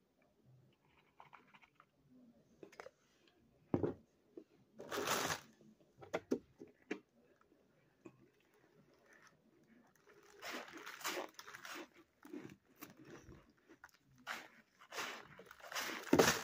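Crunching bites and chewing of ice mixed with cornstarch, in irregular bursts. The loudest crunches come near the end.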